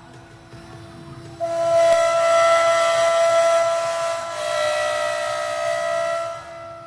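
CNC router spindle whining steadily. About a second and a half in, the bit cuts into a wooden cylinder turning on the rotary axis, making a much louder, hissing whine. The cut eases briefly around four seconds in and stops about six and a half seconds in, leaving the spindle's steady whine.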